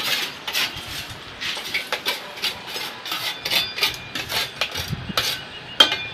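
Steel tamping rod working fresh concrete in a metal slump cone: repeated, irregular scraping and knocking of rod on concrete and the cone's rim as the top is struck off level, with one sharper knock near the end.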